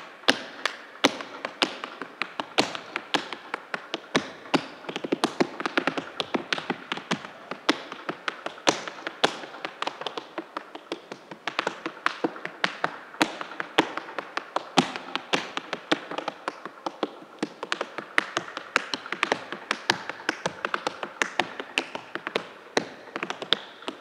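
Tap shoes striking the stage floor in an unaccompanied tap solo: quick, uneven runs of sharp taps with no music behind them, a few strikes standing out louder than the rest.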